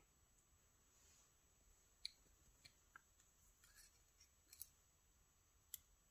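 Near silence broken by a handful of faint, scattered metallic clicks: steel tweezers working inside a lock cylinder's housing to fish out a driver-pin spring.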